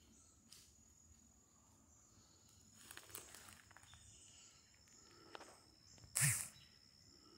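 Footsteps on forest floor: a few soft rustling steps, with one louder crunch about six seconds in.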